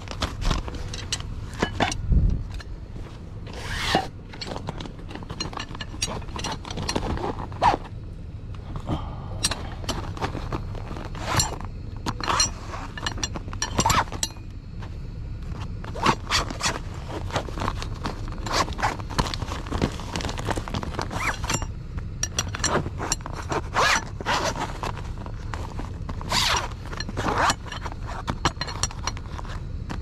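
Fabric tool bag handled with gloved hands, giving irregular rustling, zipper and scraping noises. Metal rods inside give sharp clicks as they knock together.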